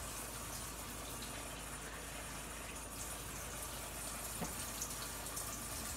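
Water running steadily from a tap, filling a container to top up the water bath of a Luvele yogurt maker.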